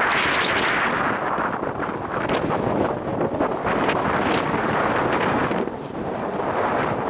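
Strong wind buffeting the microphone, a loud rushing noise with uneven gusts.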